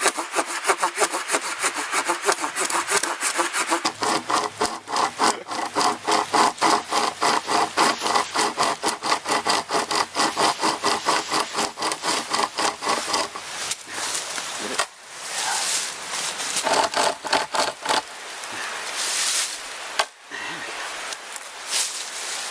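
Handsaw cutting through a log of firewood in quick, even back-and-forth strokes, with a short pause about fifteen seconds in and slower, more uneven strokes after it.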